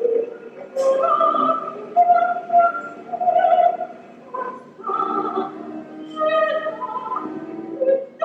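Classical music with operatic singing, a voice holding long, wavering notes over lower sustained tones.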